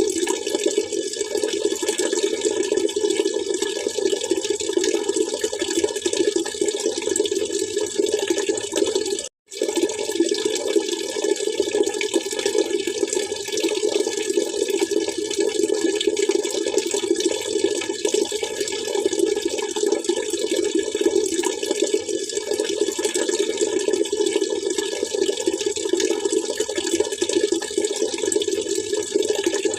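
Water splashing and trickling in a steady, unchanging rush. The sound cuts out completely for a split second about a third of the way in, then carries on as before.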